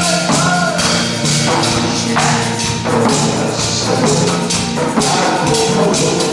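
Janggu (Korean hourglass drum) beaten in a steady, brisk rhythm along with upbeat backing music that carries a melody.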